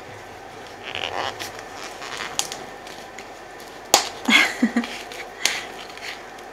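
Scattered handling noises on a craft table: light taps, clicks and rustles as a chipboard panel, cloth and a plastic glue bottle are moved about, with the sharpest click about four seconds in.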